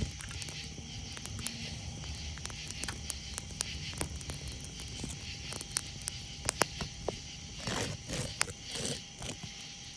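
Campfire crackling, with sharp pops scattered irregularly through, over a steady chorus of night insects. Two brief noisy scrapes come about eight and nine seconds in.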